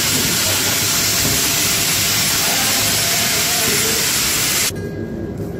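Loud, steady rushing noise of a power tool running in a workshop; it cuts off abruptly near the end.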